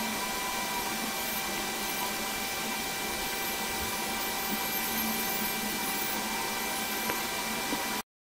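Steady background hiss with a few faint steady tones in it, with no speech or distinct events; it cuts off abruptly to silence near the end.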